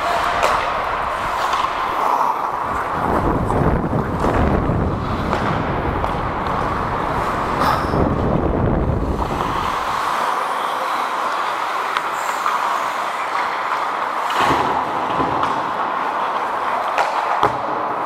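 Ice hockey play heard from on the ice: a steady scraping hiss of skates on ice, with a few sharp clacks of sticks and puck. A heavier low rumble runs from about three to ten seconds in.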